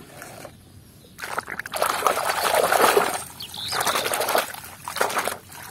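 Water sloshing and splashing in a plastic basin as toys are scrubbed and churned by hand, starting about a second in and coming in two spells.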